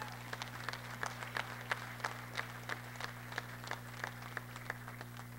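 Scattered applause in a gymnasium: separate handclaps, about three a second, thinning out and stopping near the end, over a steady electrical hum.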